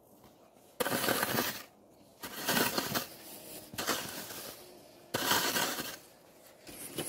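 Snow shovel scraping into and scooping packed snow: about five strokes, each about a second long and roughly a second and a half apart.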